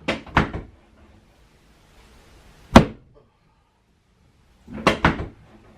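Chiropractic drop table's drop section snapping down under the chiropractor's thrusts on the low back, sharp thunks: two just after the start, one a couple of seconds later, and a quick group of two or three near the end.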